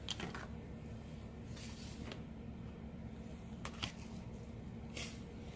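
A few faint, brief rustles and scrapes from fiberglass cloth being laid down and handled, over a steady low hum.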